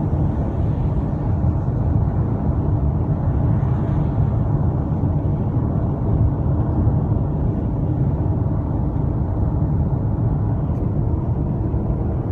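Steady low rumble of road and engine noise in a car driving at highway speed.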